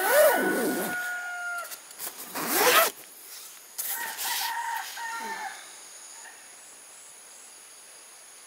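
Roosters crowing: three crows within about the first five and a half seconds, each held on a steady pitch, the last slightly higher than the first. A faint steady high insect buzz follows.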